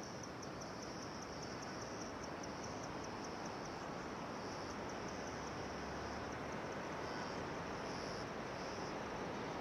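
Insects chirring in a high, rapidly pulsed trill that breaks into short, separate bursts after a few seconds, over a steady outdoor hiss.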